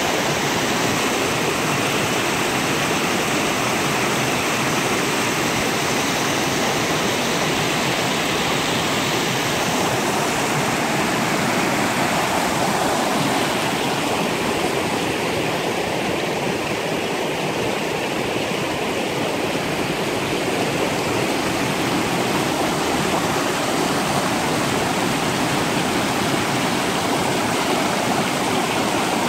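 Shallow river rapids rushing steadily over rocks, a continuous even noise of white water.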